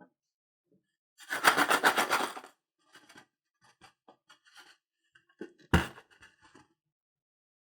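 Hands working slime at close range: a dense run of rapid sticky crackling clicks lasting about a second, then scattered small clicks and one sharper knock near the six-second mark.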